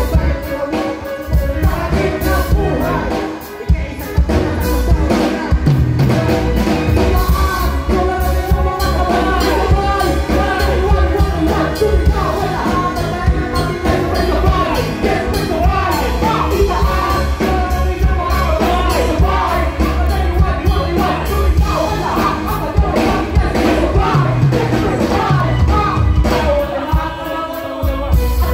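Live band music played loud through a PA, with a heavy, steady bass line and drums, and vocals from several performers on handheld microphones over it.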